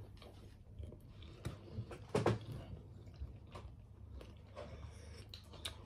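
Quiet eating sounds: chewing, with scattered small clicks and one brief louder sound about two seconds in.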